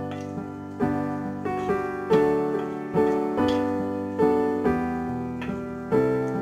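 Background piano music: notes and chords struck about twice a second, each one ringing and fading before the next.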